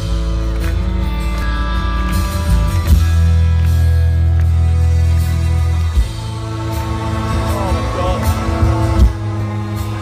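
Live rock band playing, recorded from within the crowd: sustained guitar chords over heavy bass. About six seconds in, the bass drops away and the sound thins out.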